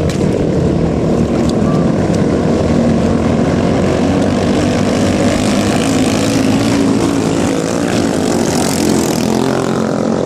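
Small 6–7 horsepower racing ketinting (longtail boat) engine running flat out as the boat speeds over the water, a steady unbroken drone, with the hiss of spray growing louder about eight to nine seconds in.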